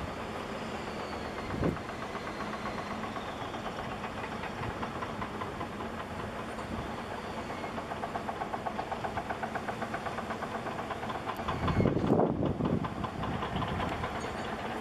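An engine running with a fast, even knocking clatter that swells and fades. A gust of wind buffets the microphone near the end.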